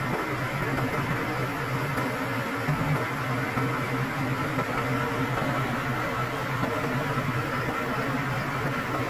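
Engines idling steadily with a low, even hum, from the self-loader truck and the tractor loaded on its tilted bed.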